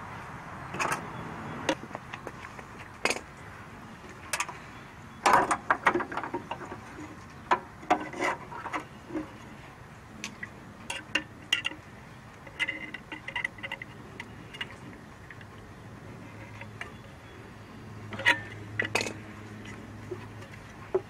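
Irregular clicks, clinks and rattles of hand tools and small metal parts as a car horn is unplugged and taken off its bracket on the radiator support, loudest in a cluster about five seconds in.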